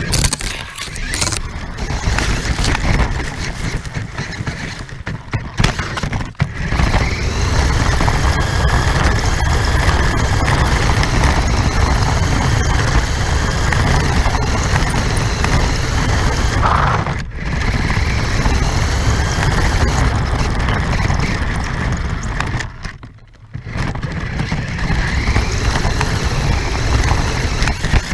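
Radio-controlled car driving, heard from a camera mounted on it: a loud, steady rumble with a motor whine that rises and falls, dropping out briefly a few times.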